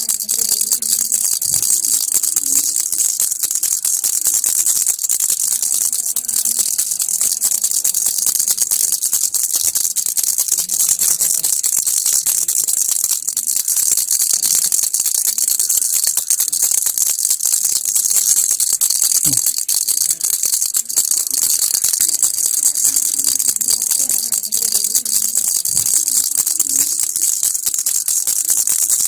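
Toy baby rattle shaken without a break, a dense, steady, high rattling of its beads.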